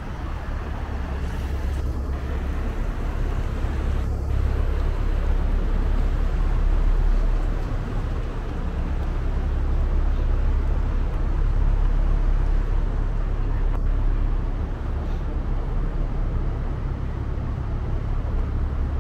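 Tour boat's engine running with a steady low drone under a broad rushing noise, swelling a little twice around the middle.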